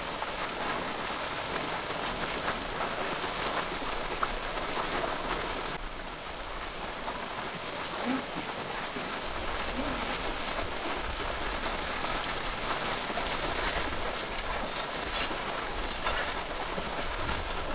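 Steady hissing noise like falling rain, with a break in it about six seconds in and sharper crackling ticks over the last few seconds.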